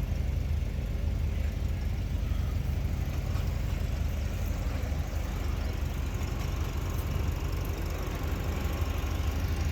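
An engine idling steadily, a low, even hum with a rapid pulse to it.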